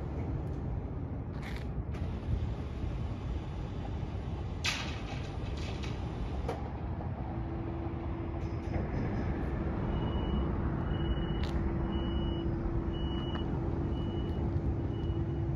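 A battery-powered streetcar standing at a stop, with a few sharp clunks in the first seven seconds as its pantograph is raised to the overhead wire. A steady hum starts about halfway through, and over the last five seconds about six short high beeps sound roughly a second apart.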